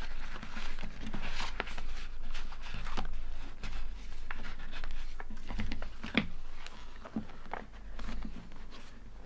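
Paper rustling and scraping as a kraft-paper envelope is slid into a notebook cover and the notebook is closed, with a sharper tap about six seconds in.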